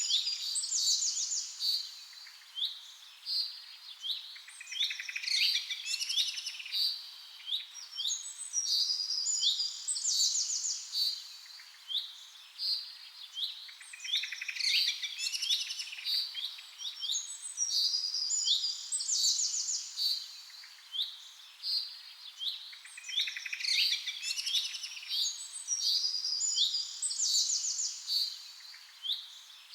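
Birdsong: many high chirps and fast trills from several birds, coming in clusters every few seconds.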